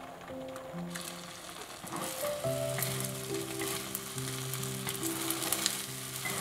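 Beaten egg sizzling in a hot nonstick wok, getting louder about a second in as it is scrambled with chopsticks, with light clicks of the chopsticks against the pan.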